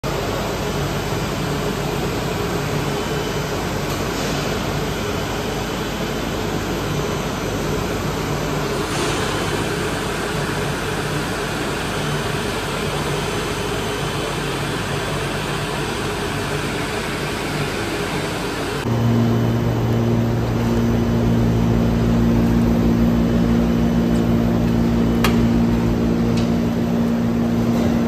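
Continuous biomass carbonization plant machinery running: a steady rushing noise, then a sudden change about two-thirds of the way through to a louder, steady low machine hum.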